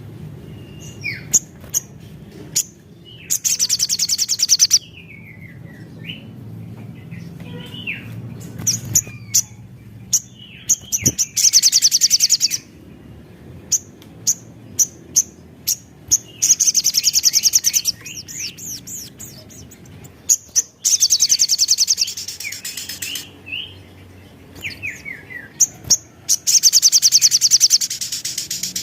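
Sunbird singing: bursts of very rapid, high trilling lasting a second or two, about five times, alternating with sharp chirps and short falling notes.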